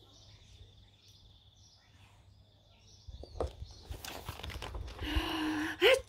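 A few seconds of quiet, then light rustles and taps as a picture book is handled, then a woman drawing out a breathy 'ahh' that builds into a performed sneeze, breaking into a loud 'choo' at the very end.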